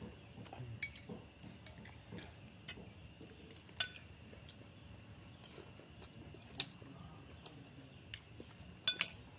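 A cat eating seafood scraps off a concrete floor: faint chewing, with a few sharp clicks spread out and two close together near the end.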